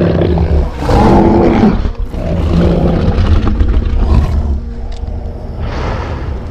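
A giant ape monster's film sound-effect vocalisation: deep growling roars in several long stretches, the loudest about a second in, over a steady low rumble. Near the end the roaring gives way to a softer rushing swell.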